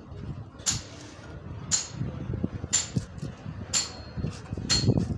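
Five sharp metallic clinks about a second apart, each ringing briefly at a high pitch, over a low background rumble.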